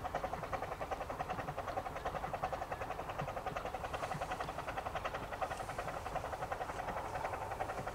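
Bure Valley Railway No. 9 'Mark Timothy', a 15-inch gauge steam locomotive, running with its train at a fast, even rhythmic beat.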